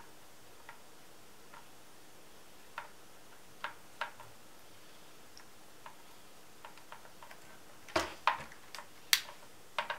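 Sparse, faint clicks of a screwdriver turning the screw of an RC car's plastic battery cover to close it, with a few louder clicks and knocks about eight seconds in as the car is moved.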